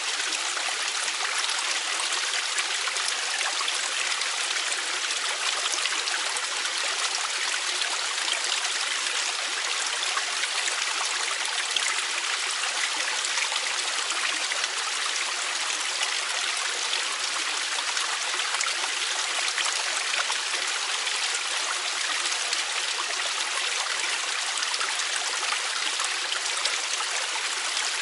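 Mountain valley stream flowing steadily: a constant, unbroken rush of water, bright and hissy, with little low rumble.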